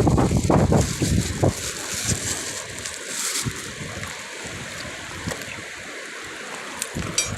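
Wind buffeting the microphone over a steady wash of water, with scattered small clicks and knocks and a quick rattle near the end.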